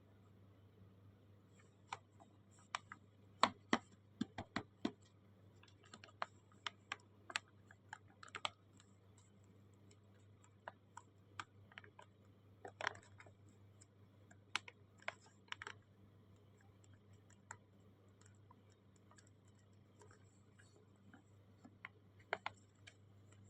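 Irregular light clicks and taps, clustered in quick runs and then a few more near the end, over a low steady hum.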